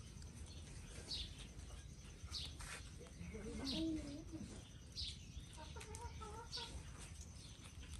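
Faint bird calls: short high chirps every second or so, with a few lower, wavering calls around the middle.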